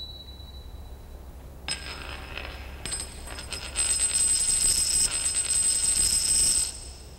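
Magical shimmer sound effect: a bright, sustained chiming ring with steady high tones. It comes in about a second and a half in, swells louder around four seconds in, and cuts off suddenly near the end.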